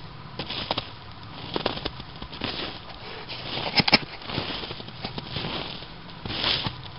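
Footsteps crunching through a few inches of snow on the forest floor, about one step a second, with a louder sharp crackle of twigs about four seconds in.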